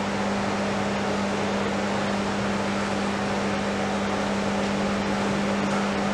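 Soft-serve ice cream machine running as it dispenses, a steady motor and refrigeration hum with a strong low tone.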